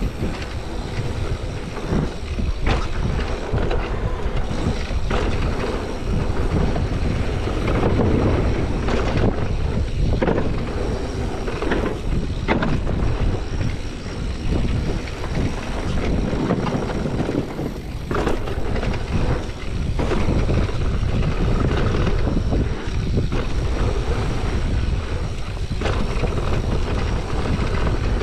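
Mountain bike riding fast down a dirt trail: tyres rolling over dirt with wind rushing across the camera microphone, and frequent sharp clatters and knocks as the bike rattles over bumps.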